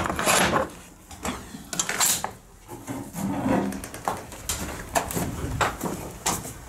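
Metal barrel bolt on a wooden stable door slid open with a scrape, then a clatter about two seconds in and scattered sharp knocks as the door is opened and the horse is led out.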